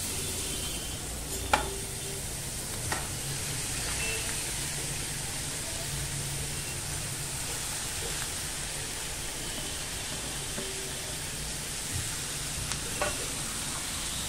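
Chopped onions and green chillies frying in hot oil in a pan: a steady sizzle, with a few light taps.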